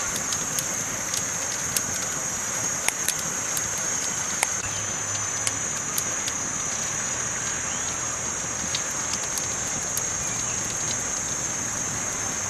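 Campfire burning, the wood crackling with sharp pops and snaps scattered through a steady hiss, and a constant high-pitched hiss above it.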